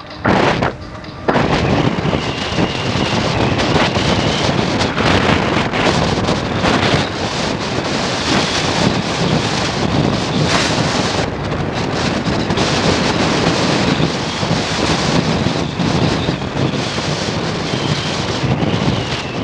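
Loud, steady wind rush buffeting an action camera's microphone while riding an electric fat bike along the road. It settles in about a second in, after a short drop in level.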